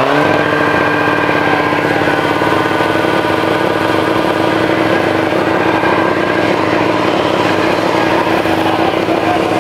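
Car engine held at steady high revs as its front tyres spin on the spot in a burnout, with a hiss of tyre noise over the engine note.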